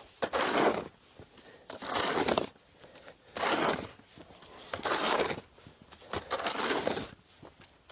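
Snow shovel scraping and pushing through fresh snow on pavement in five even strokes, about one every second and a half.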